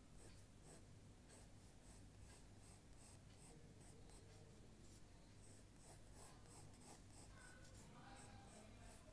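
Faint, quick strokes of a drawing tool scratching on paper, several a second, over a low steady hum.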